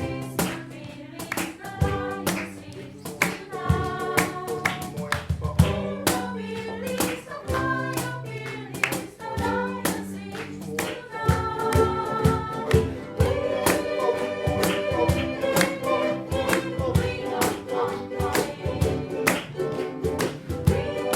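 Live ukulele ensemble playing, with rhythmic strummed strokes under pitched melody notes; from about two-thirds of the way in, a sustained melody line is held over the strumming.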